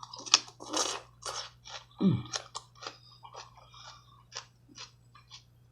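Close-miked eating: wet chewing and smacking with many short, irregular crunches and clicks, from a mouthful of seafood boil. A short falling "mm" of the voice comes about two seconds in.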